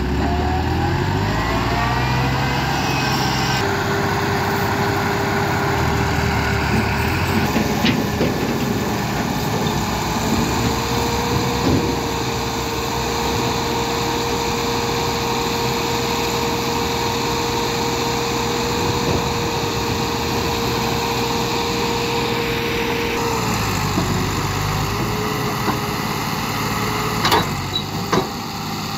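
Massey Ferguson tractor's diesel engine running under load as it pulls and then tips a heavily loaded earth trolley. Its pitch rises in the first couple of seconds and then holds steady through most of the stretch. A few sharp knocks come near the end.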